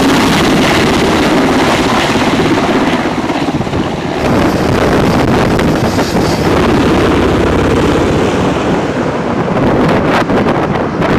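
Loud, steady wind rumble on the microphone mixed with the engine noise of flight-deck vehicles such as forklifts.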